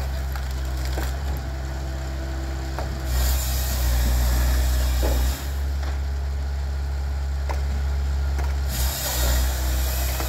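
Dyna SC-16 firewood processor working: its engine runs steadily under the knocking and cracking of wood being processed and pieces clattering up the conveyor. Two longer stretches of louder rasping come about three seconds in and near the end.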